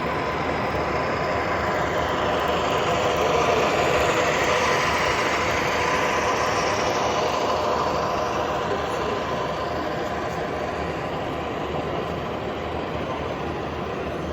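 A train running past on the rails: a steady rumble and rail noise with faint steady tones, swelling about a third of the way in and then slowly easing off.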